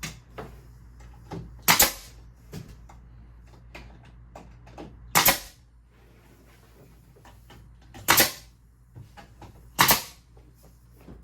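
Nail gun firing four times, a few seconds apart, driving nails through the tongues of tongue-and-groove car siding boards, with light knocks of board handling in between.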